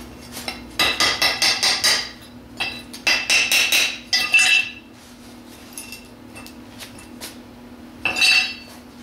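Quick runs of sharp, ringing metal-on-metal taps, a hammer striking freshly MIG-welded scrap steel: several rapid taps in the first half, then one more short burst near the end.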